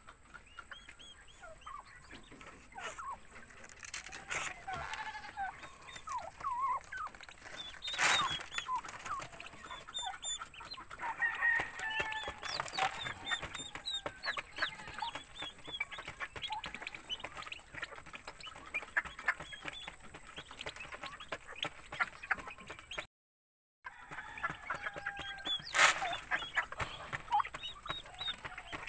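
Turkey poults peeping and a turkey hen clucking as the brood feeds on grain: many short, high calls come one after another, with a few sharp knocks. The sound drops out briefly near the end.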